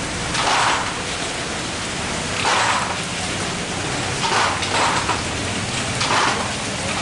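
Steady rain on a corrugated metal roof, a dense hiss that swells briefly louder every second or two.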